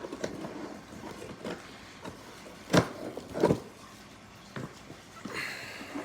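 Packaging being handled while parts are lifted out of a cardboard box: rustling and light knocks, two sharp knocks about three seconds in, and a short scraping rustle near the end.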